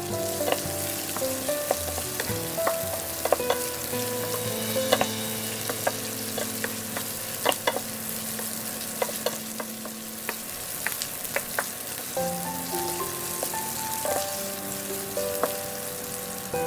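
Pork liver slices sizzling as they sear in hot oil in a nonstick pan, stirred with a wooden spatula that knocks and scrapes against the pan in frequent sharp clicks.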